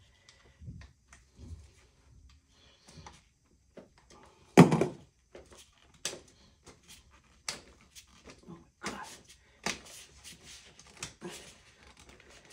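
Scattered clicks and taps of hand tools and parts being worked into a ZF 8HP automatic transmission's clutch pack, with one heavier knock about four and a half seconds in and the taps coming closer together in the second half.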